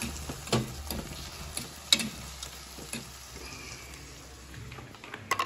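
Corned beef, onions and tomatoes frying gently in a pan, a light sizzle with a few sharp clicks spread through.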